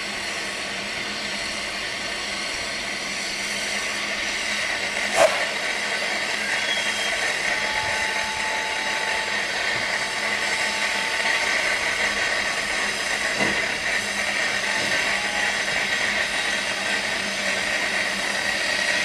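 Steady steam hiss from a narrow-gauge steam locomotive, Manning Wardle 2-6-2T No.190 'Lyd', standing in steam, with a single sharp clank about five seconds in and a fainter knock a little after thirteen seconds.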